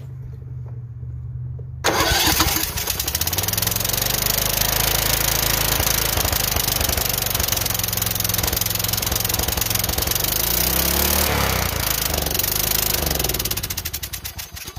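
Kohler Courage 20 hp single-cylinder engine on a Troy-Bilt Super Bronco being cranked, catching about two seconds in on fuel squirted into the carburetor at full choke, running loudly with some surging, then sputtering out near the end. It dies as it tries to run on its own gas: the carburetor, its bottom solenoid gasket leaking fuel, is not feeding it.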